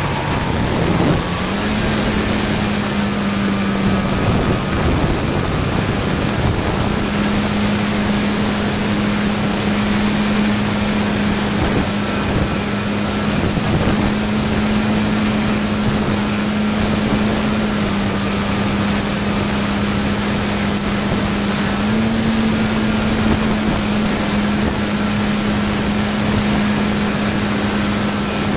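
Electric park flyer RC plane's motor and propeller heard from on board, humming steadily over wind rush on the microphone. The pitch rises a little about a second in and steps up again about three-quarters of the way through as the throttle changes.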